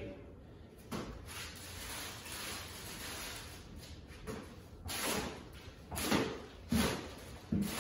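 Plastic wrapping rustling as it is pulled off the bottom end of a stainless steel worktop panel, then several sharp scuffs and knocks from about five seconds in as the panel shifts on cardboard.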